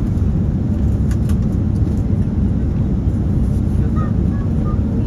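Steady low roar of a passenger airliner's engines and rushing air, heard inside the cabin in flight.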